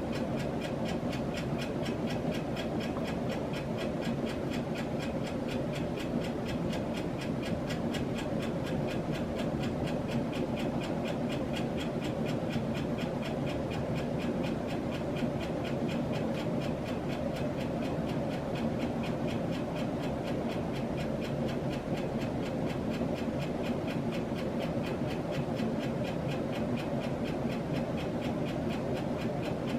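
A 1997 Hunter Low Profile ceiling fan running with two blades: a steady motor hum with a fast, even clicking from its worn bearing.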